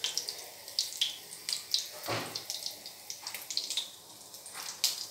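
Hot oil sizzling and dripping as fried soya chunks are scooped out with a perforated steel skimmer, with light clicks and clinks of the skimmer against the pan and a steel plate, and one louder knock about two seconds in.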